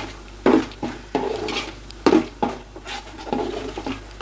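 Metal ladle scraping and stirring thick onion-tomato masala around a large metal pot, in a series of uneven strokes about every half second to second: the masala being sautéed.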